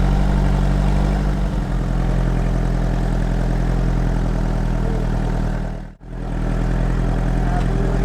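Vehicle engine running steadily, a low even hum. It drops out abruptly about six seconds in, then comes straight back.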